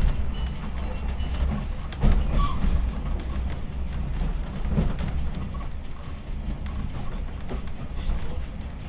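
Wheels of a vintage railway saloon carriage running along the track, heard from inside the carriage: a steady low rumble with scattered knocks over the rail joints, the sharpest about two seconds in.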